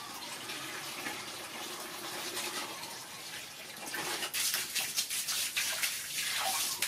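Water from a hose running into a plastic bucket, a steady splashing pour. From about four seconds in, irregular sharper splashes and slaps join it as a small monkey jumps down onto the wet concrete.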